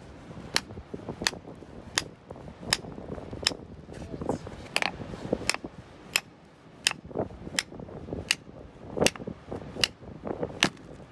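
Hammer blows on a steel chisel driven into rock, a steady run of sharp strikes about one every 0.7 seconds, with a few softer knocks of loosened rock in between.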